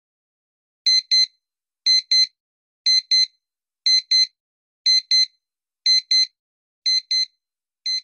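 Countdown-timer sound effect: a high electronic double beep, like a digital alarm clock, repeating once a second. It starts about a second in and gets a little quieter near the end.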